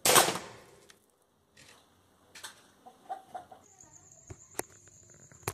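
Nitro piston air rifle firing: one sharp shot at the start as the pellet hits a plastic bottle, fading over about half a second. A chicken clucks a few times about three seconds in. After that a steady high-pitched tone and a few sharp clicks are heard.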